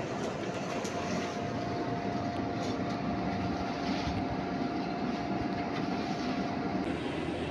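Electric blower feeding a charcoal forge fire, running with a steady whir and a faint steady whine that drops away near the end.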